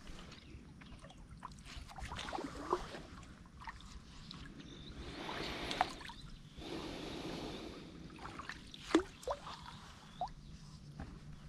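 Small wooden canoe being paddled: the paddle swishes through the water and drips, with a few light knocks.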